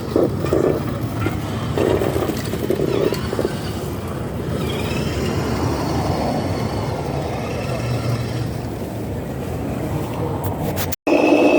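Steady vehicle running noise, likely from radio-controlled model trucks, with voices in the first few seconds. It breaks off abruptly near the end.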